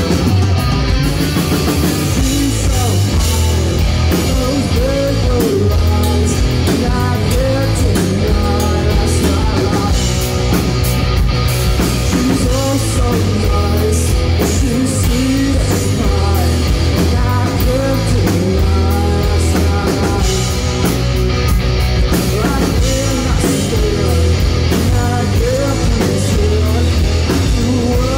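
Live rock band playing loudly: distorted electric guitar, electric bass and drum kit, with the guitarist singing into the microphone.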